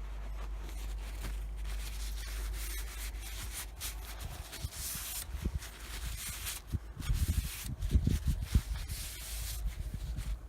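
A steel brush-knife blade being wiped clean of dirt and WD-40, with repeated rubbing strokes along the blade. Louder, irregular handling bumps come about seven to nine seconds in.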